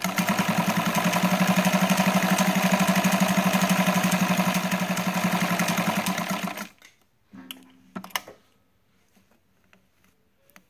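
Vintage White 765 zigzag sewing machine running at speed, its motor whirring with a fast, even pulse of needle strokes as it zigzag-stitches through twelve layers of quilting-weight cotton. It stops suddenly after about seven seconds, followed by a brief burst of running and a few clicks.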